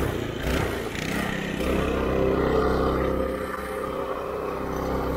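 Governed Predator 224 single-cylinder engine on a homemade scooter running at full throttle on a top-speed run, mixed with wind rush. A steady engine note comes up about one and a half seconds in and fades back under the wind near the end.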